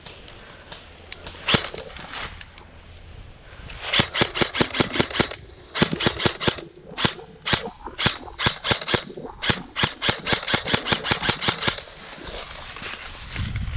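Airsoft guns firing: a single shot about a second and a half in, then rapid strings of shots, several a second, from about four seconds in until near twelve seconds.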